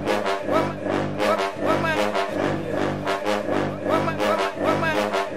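Brass-heavy music with a steady, repeating beat.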